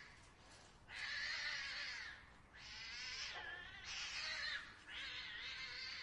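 Cats fighting at night: about four long, wavering yowls and screeches in a row, each about a second long with short breaks between, the first starting about a second in.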